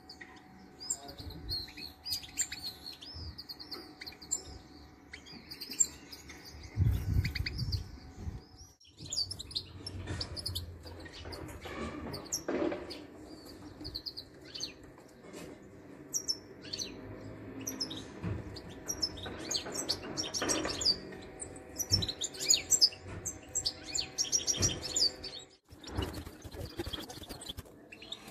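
European goldfinches chirping and twittering in many quick, high notes, with a short low rumble about seven seconds in.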